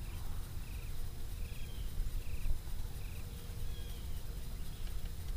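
A cricket chirping in short pulsed chirps about once a second, over a low steady rumble.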